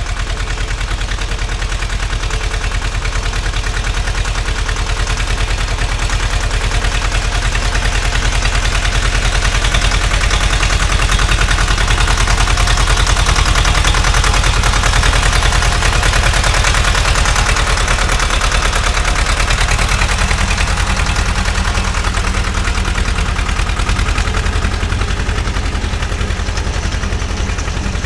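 T-25 tractor's two-cylinder air-cooled diesel engine running steadily with a rapid, even beat, a little louder around the middle.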